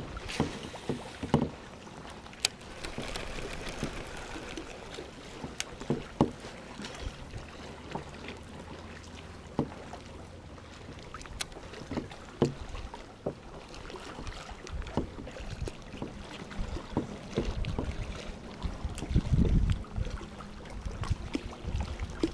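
Scattered knocks and clicks on a plastic fishing kayak, over the soft lapping of water against the hull and a rock face. A louder low rumble comes near the end.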